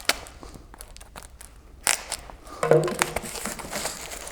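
Packaging being torn open and crumpled by hand: irregular crinkling, tearing and rustling with sharp clicks and crackles.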